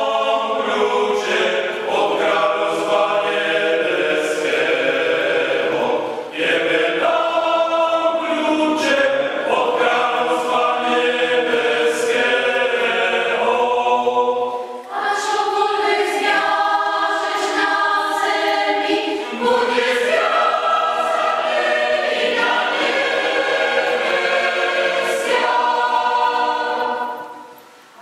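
Mixed choir of women's and men's voices singing together in several parts, with short pauses between phrases; the singing fades away just before the end.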